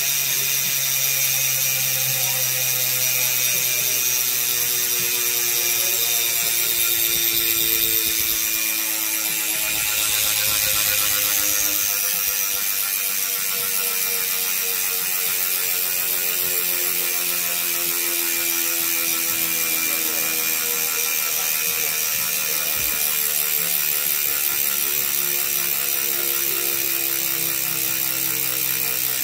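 Bicycle rear hub freehub ratcheting as a deep-section rear wheel freewheels on a workstand: a fast, even buzz of pawl clicks that slowly drops in pitch as the wheel spins down.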